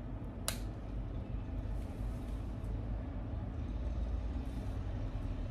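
Steady low background rumble, with a single sharp click about half a second in.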